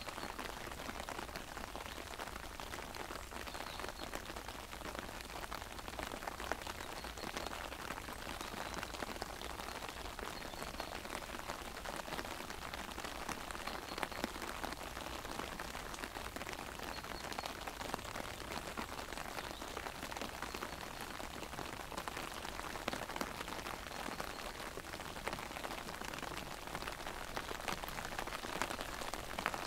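Steady rain falling, with many close raindrops tapping on an umbrella overhead.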